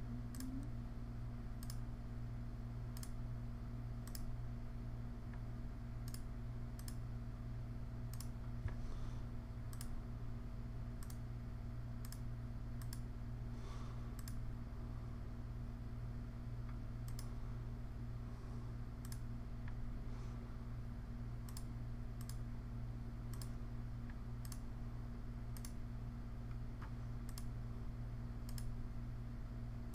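Computer mouse clicking: single sharp clicks at irregular intervals, roughly one a second, each one stepping to the next preset in a list. A steady low hum runs underneath.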